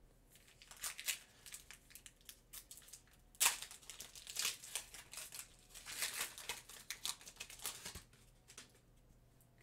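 Clear plastic packaging crinkling and rustling as hands handle it, in irregular crackles with the loudest crackle a few seconds in.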